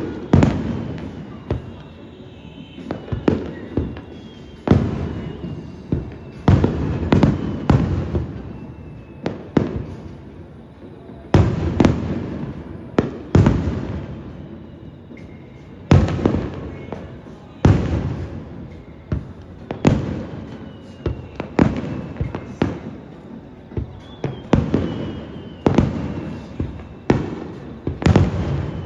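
Aerial firework shells bursting in a rapid, irregular barrage, a sharp bang about every one to two seconds, each trailing off in an echoing rumble.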